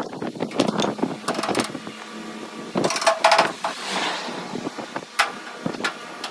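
Irregular sharp metal knocks and clanks, several of them ringing briefly, with a short hiss in the middle.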